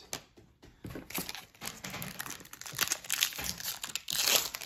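Crinkling and crackling of a trading-card pack wrapper being handled and opened, growing busier after about a second and loudest near the end.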